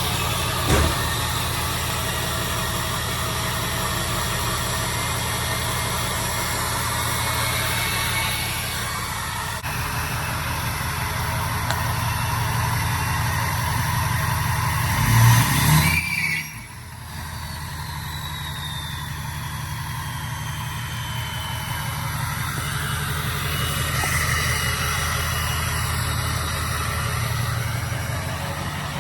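Ford 6.0 Power Stroke V8 turbo diesel running through a new 5-inch Flo Pro exhaust, mostly at a steady idle. About fifteen seconds in there is a short rise in revs that falls off sharply, followed by a long falling whistle.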